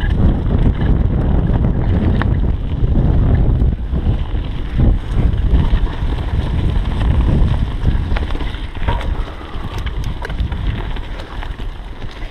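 Wind buffeting the camera microphone over the rumble of mountain-bike tyres on a leaf-strewn dirt trail during a fast descent, with scattered short clicks. The noise dies down a little near the end as the bike slows.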